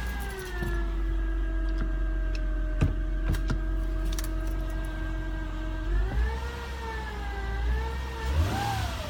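2009 Acura TL 3.5's V6 idling with a steady high whine over the engine note. The whine rises and falls in pitch with the engine speed when it is revved twice near the end; it is a new noise that gets whinier with higher RPM.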